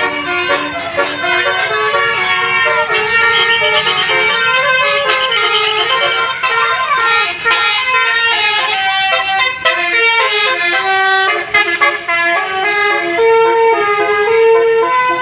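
Basuri telolet horn on a bus, a multi-trumpet air horn playing a tune: a run of loud held notes stepping up and down in pitch, several sounding together.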